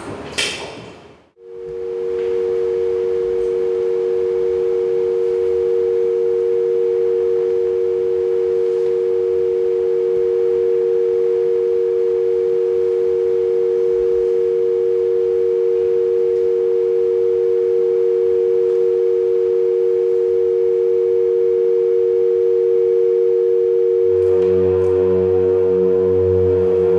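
Electronic drone music: two steady pure tones held together without change, after a short burst of noise that cuts off suddenly about a second in. Near the end a low hum and further layered tones join the drone.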